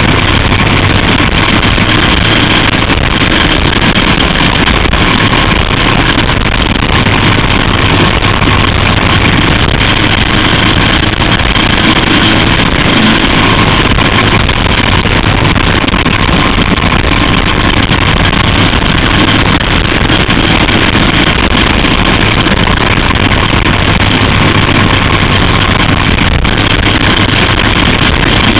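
A small open-wheel race car's engine running hard at racing speed, heard from on board the car, steady and loud without a break.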